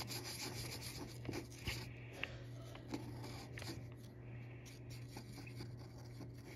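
Felt-tip marker scribbling on paper in faint scratchy strokes, with a few light ticks as the tip meets the page.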